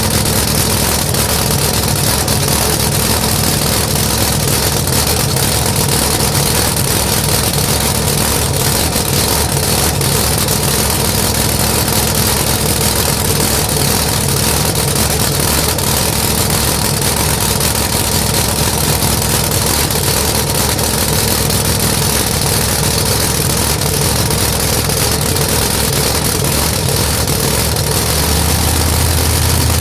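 Chevy Vega funny car's drag-racing V8 engine running at a steady, loud idle. The low rumble grows louder near the end.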